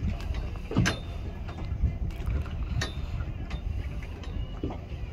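Wind rumbling on the microphone aboard a small fishing boat, with a few sharp knocks or splashes, the clearest about a second in and near three seconds.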